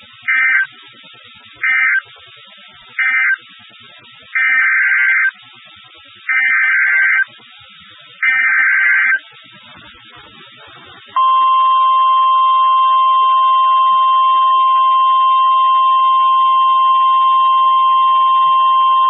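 Emergency Alert System SAME data tones over faint radio hiss: three short buzzy end-of-message bursts about a second apart, then three longer header bursts, which mark the close of one weather warning and the header of the next. Then a steady, loud, single-pitch NOAA Weather Radio warning alarm tone starts about 11 seconds in and holds for about nine seconds.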